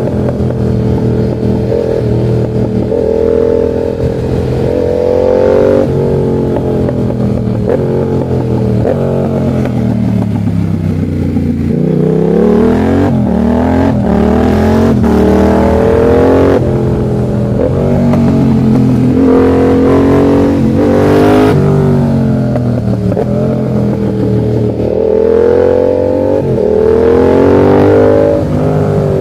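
Yamaha MT-07's 689 cc parallel-twin engine under riding load, its revs climbing and dropping again and again as the bike accelerates and backs off through the curves, with a quick run of revs dipping and rising near the middle.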